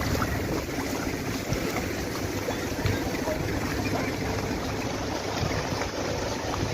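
Steady rushing storm noise of cyclone wind and water, with gusts buffeting the microphone.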